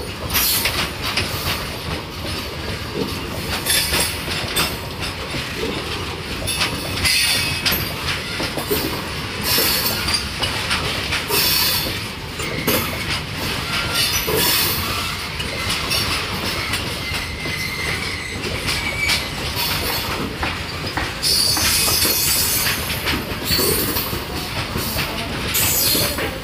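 Loaded BCNA covered freight wagons rolling past, their wheels clattering over the rail joints in an irregular run of clacks. Stretches of high-pitched wheel squeal come and go throughout, over a steady rumble.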